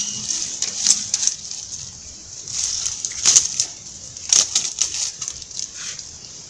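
Dry leaf litter and twigs crackling and rustling as a hand rummages through them in irregular bursts. The two loudest crackles come about three and four and a half seconds in.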